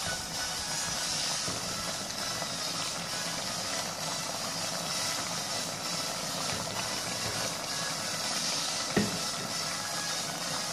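Steady sizzling hiss of a chicken liver and gizzard stew with potatoes, carrots and bell pepper cooking in tomato sauce in a metal pot; one short knock near the end.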